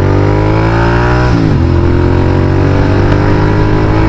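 Royal Enfield 650 parallel-twin motorcycle with an aftermarket AEW exhaust accelerating. The engine note rises, drops at a gear change about one and a half seconds in, then pulls on steadily.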